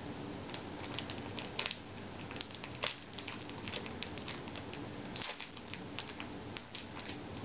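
Foil wrapper of a trading-card booster pack crinkling and crackling in the hands as the pack is opened, a run of irregular small crackles and clicks.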